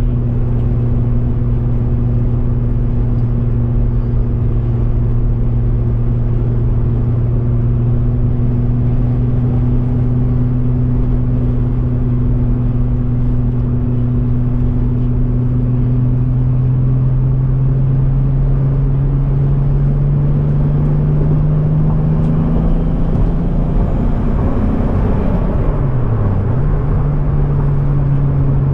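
Car engine running while driving, a steady note that climbs gradually, then briefly drops and picks back up near the end, as with a gear change.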